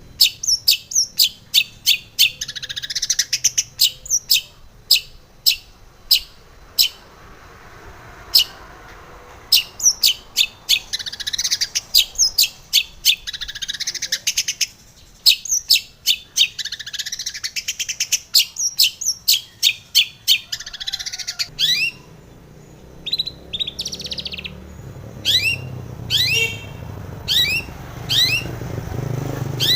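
Long-tailed shrike (cendet) singing in fast, chattering runs of sharp, sweeping high chirps and squeaky notes, with a short pause about two-thirds of the way through. A faint low hum rises under the song near the end.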